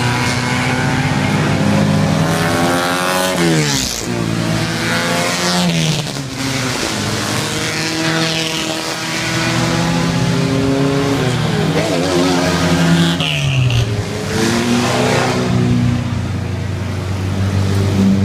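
Vintage cars accelerating past one after another, their engines revving up, with the pitch climbing and then dropping back sharply several times as they shift gears.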